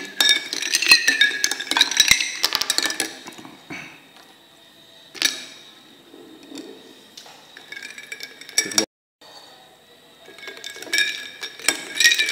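A metal spoon stirring ice cubes in a glass, clinking against the glass and the ice. Clinking is dense at first, sparse in the middle, and dense again near the end.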